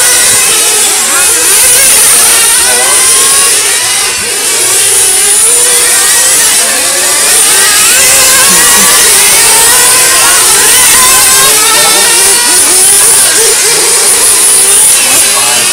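Several 1/8-scale nitro RC GT cars' small two-stroke glow-fuel engines running at high revs on track. Their overlapping pitches keep rising and falling as the cars accelerate and lift for corners.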